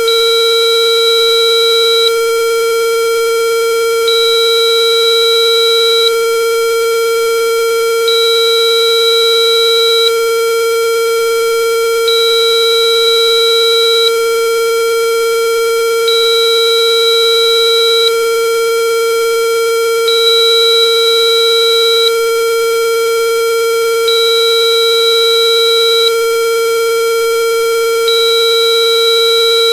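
Continuous electronic tone at 456.5 Hz from Rife frequency-therapy software, steady and buzzy. A higher beep comes on for about two seconds and off for two seconds, over and over.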